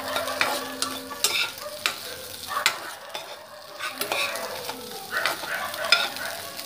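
A spatula scraping and stirring scrambled egg in a nonstick kadai, with frying oil sizzling under irregular scrapes and clicks against the pan.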